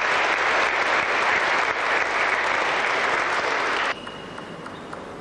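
Spectators applauding a won point at a table tennis match, a dense patter of clapping that cuts off suddenly about four seconds in.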